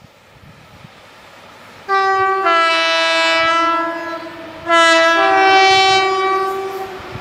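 Two-tone air horn of a British Rail Class 60 diesel locomotive, sounded twice, each blast about two seconds long and stepping between its two notes, over the faint rumble of the approaching train.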